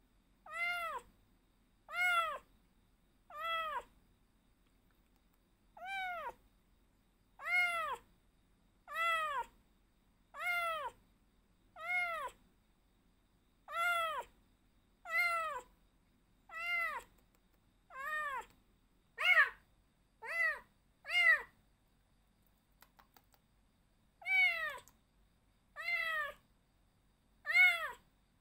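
Young rescued stray tabby kitten meowing over and over, roughly one call every second and a half with a couple of short pauses, each meow rising then falling in pitch. The kitten is unsettled and calling, not yet calmed down.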